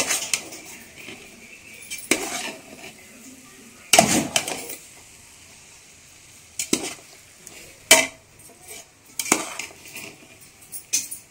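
A perforated steel spatula scraping and clanking against the side of a large aluminium pot as rice is turned and mixed, in about seven separate strokes spaced a second or two apart.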